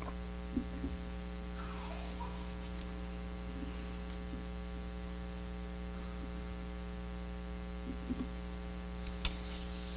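Steady electrical mains hum, a low buzz with many overtones, with a few faint clicks.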